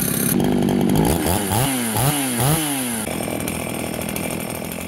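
Vintage Husqvarna two-stroke chainsaw running. The engine is revved up and down several times from about a second in, then settles back to a steady run.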